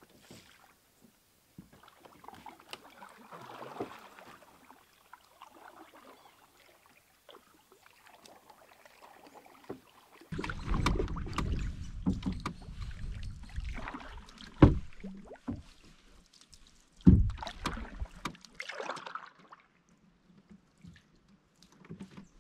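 Faint knocks and rustling as gear is loaded into a canoe, then, about ten seconds in, canoe paddling: paddle strokes swishing and splashing in the water, with wind rumbling on the microphone and two sharp knocks a couple of seconds apart.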